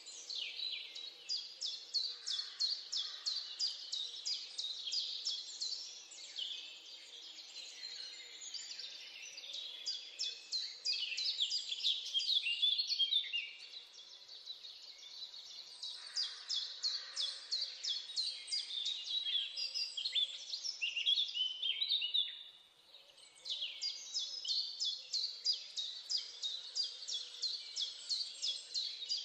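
Chorus of songbirds chirping and singing, with fast runs of rapidly repeated notes; it dips briefly about three-quarters of the way through.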